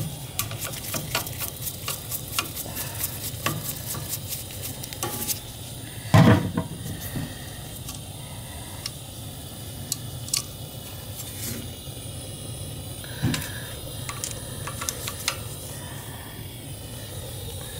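Small metal clicks and clinks of hand tools working on a gas boiler's gas control valve while a manometer is hooked up to it: rapid for the first five seconds or so, a single louder knock about six seconds in, then scattered ticks. A steady low rumble runs underneath.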